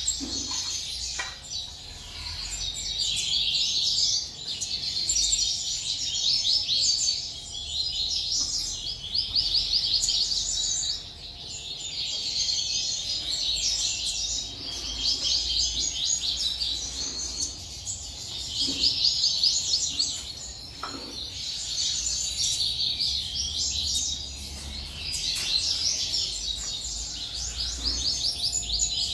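Many small cage birds chirping and twittering at once in a dense, continuous chorus, with a faint steady hum underneath.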